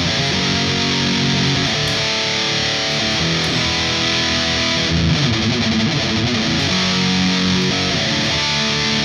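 Strandberg Boden NX Classic headless electric guitar played with heavy distortion through a Kemper Profiler running a high-gain Mesa Boogie profile. Held distorted chords alternate with quicker runs of notes.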